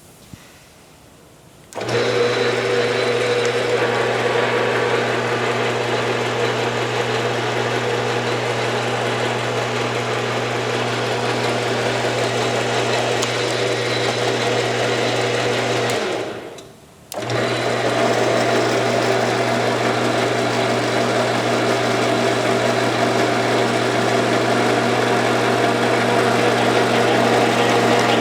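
Enco 110-2034 12" x 36" gap-bed engine lathe running under power, its 1-1/2 hp single-phase motor and drive giving a steady hum with a fixed whine, running normally. It starts suddenly about two seconds in, winds down around sixteen seconds, and starts again abruptly a second later.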